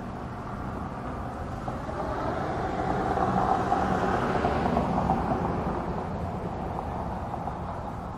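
A vehicle passing by: a steady rumble that swells to a peak about four seconds in and then fades.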